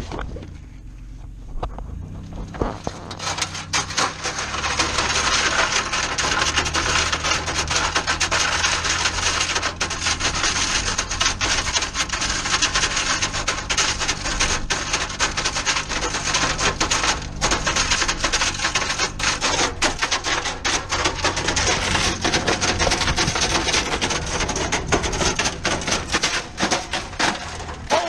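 A van driving slowly up a gravel dirt track with its engine running low, tyres crunching on the stones, while a microwave towed on a rope scrapes and clatters over the gravel behind it. The crunching grows louder about three seconds in and carries on as a dense stream of clicks.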